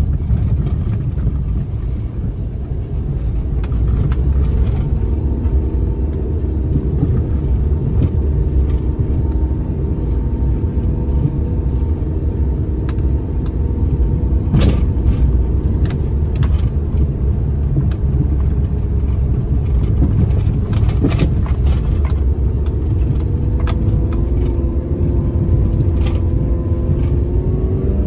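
Car running on a rough, narrow road, heard from inside the cabin: a steady low engine and tyre rumble with a few sharp knocks from bumps, and the engine note rising slightly near the end.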